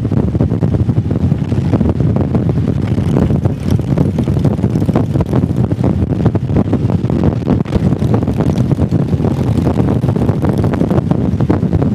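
Motorcycle riding at a steady speed: the engine runs evenly while wind buffets the microphone.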